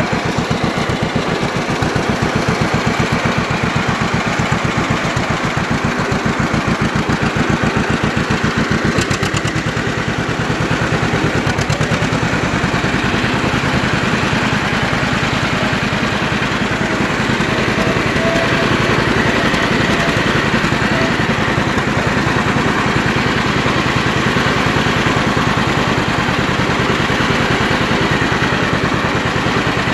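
John Deere Model B's two-cylinder engine running with an even, rapid pulse while the tractor drives in fourth gear; its beat changes about nine seconds in.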